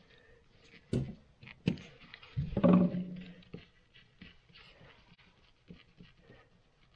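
Screwdriver driving the screw back into a Moen faucet valve stem: small metal clicks and light scraping, with two sharper clicks in the first two seconds. A brief low voice-like sound comes about two and a half seconds in.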